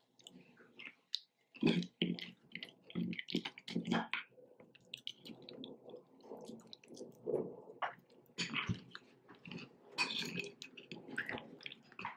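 Metal spoon stirring a thick, creamy mixture with granola in a glass bowl: wet squelching with irregular small clicks and scrapes of the spoon against the glass.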